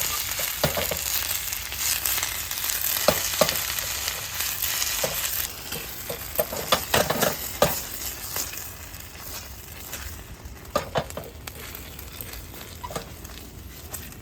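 Food sizzling in a hot frying pan while a utensil stirs and scrapes it, with short clicks and scrapes throughout. The sizzle eases off about five seconds in.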